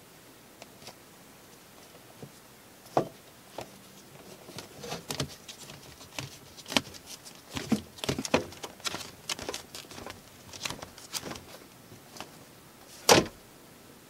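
Handling noise: irregular light taps, clicks and rustles. They are sparse at first and busier in the middle, with one sharper knock near the end.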